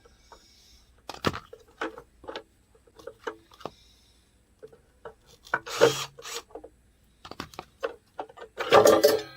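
Hilti 700 concrete saw's belt covers being worked loose and taken apart by hand: irregular knocks, clicks and scraping of the parts against each other, with the loudest knocks about six seconds in and just before the end.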